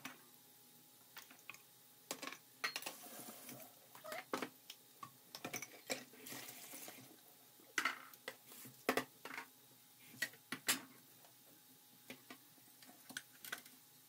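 Glass jars, a metal bowl and utensils being handled on a kitchen counter, making scattered clinks and knocks, with two short stretches of running water, about three seconds in and again around six seconds in. Diced onions fry in a pan underneath with a faint crackle.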